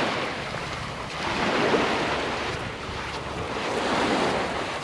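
Small waves washing up a sandy beach, the wash swelling and ebbing a few times, mixed with wind on the microphone.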